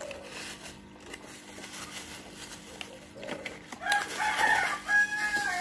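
Rooster crowing about four seconds in: one drawn-out call in a few held segments. Before it, faint rustling and clicks from the cardboard box and plastic wrapping being handled.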